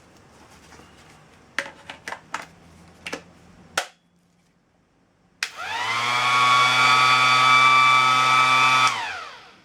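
A few clicks and knocks of handling, then a Ryobi P411 18V random orbital sander is switched on. Its motor spins up with a rising whine, runs steadily for about three and a half seconds, and winds down once switched off.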